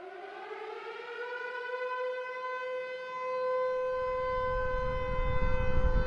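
Civil defense siren winding up, its wail rising in pitch over the first couple of seconds and then holding a steady tone while growing louder. From about four seconds in, a deep rumble builds beneath it.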